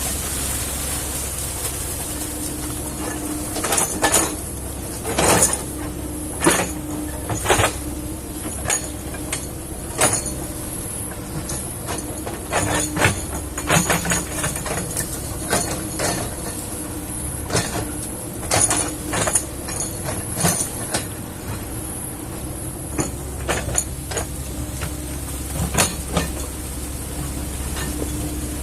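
Kobelco excavator working in peat: the diesel engine runs steadily with a held hum, while many sharp, irregular knocks and clanks come and go through the middle of the stretch as the machine digs.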